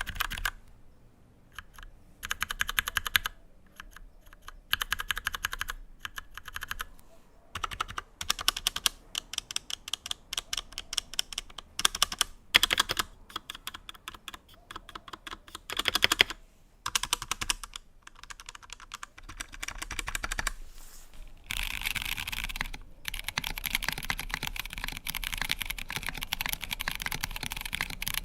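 Typing on an Akko 3068 mechanical keyboard with Cherry MX Brown switches: bursts of rapid keystrokes with short pauses between them, each key clacking as it bottoms out and returns. No silencing rings or dampening, so the switches sound like ordinary, fairly loud browns.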